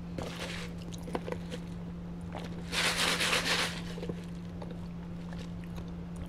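A fountain drink being sipped through a straw from a large paper cup: one rush of noise lasting about a second, among a few small handling clicks, over a steady low hum.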